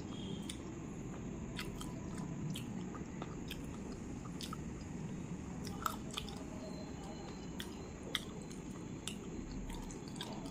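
A person chewing a mouthful of rice and chicken curry with the mouth closed: soft wet smacks and small mouth clicks scattered throughout, two sharper clicks a little past the middle, over a steady low background hum.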